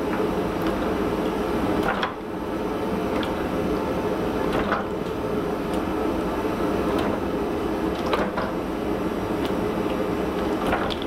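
Forging press running with a steady machine drone, and six sharp clunks a second or two apart as the ram comes down on the red-hot steel billet, which is being squeezed to close up a forge weld.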